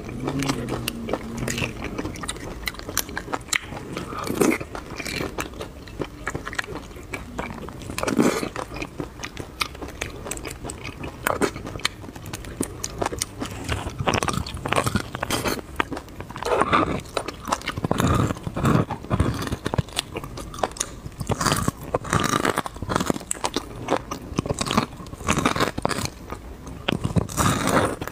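Close-miked eating of spicy braised beef bone marrow: wet chewing, biting and mouth sounds as the soft marrow is scooped and sucked from the bone pieces, in an irregular run of small clicks and smacks with louder clusters now and then.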